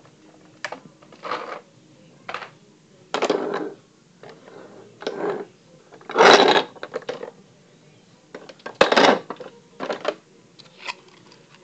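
Battery-powered toy fire truck driving on a wooden floor: irregular bursts of plastic clattering and knocking, the loudest about 6 and 9 seconds in.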